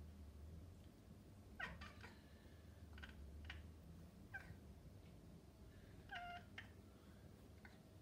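Maine Coon cat giving about six short, soft chirping meows, a second or so apart; this is the chirp cats make while watching birds.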